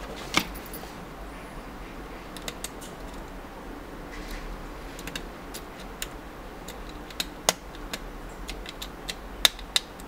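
Small plastic parts of an HBS 900 Bluetooth neckband headset clicking and tapping as it is put back together by hand. The clicks are scattered and sharp, the loudest about half a second in and twice near the end.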